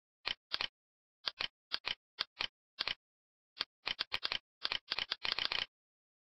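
Computer mouse clicking: short sharp clicks, mostly in pairs, with a fast run of clicks near the end.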